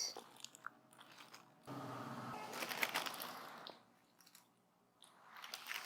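Gift-box packaging being handled: a soft crinkling and crunching of wrapping for about two seconds, then a brief rustle near the end.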